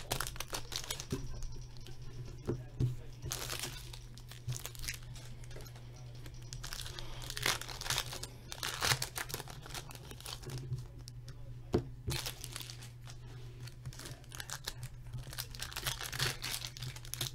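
Foil wrappers of hockey trading-card packs being torn open and crinkled by hand, in irregular crackling rustles. A steady low hum sits underneath.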